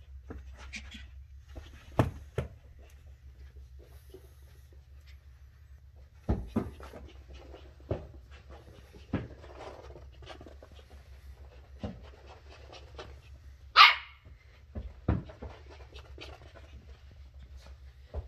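Shetland Sheepdog puppy giving one short, high bark about two-thirds of the way through, amid scattered thumps and knocks. A low steady hum runs underneath.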